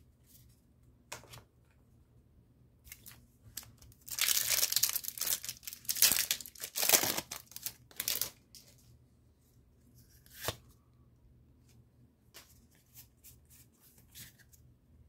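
Foil wrapper of a Pokémon TCG Lost Origin booster pack being torn open and crinkled, a noisy stretch of about four seconds starting a few seconds in, followed by lighter rustling and a click as the cards are handled.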